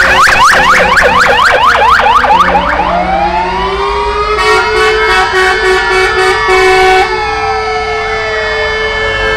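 Several fire engine sirens sounding at once. A fast yelp of rapid rising sweeps, about five a second, gives way after about two seconds to slower wailing sirens that rise and fall over several seconds, overlapping one another.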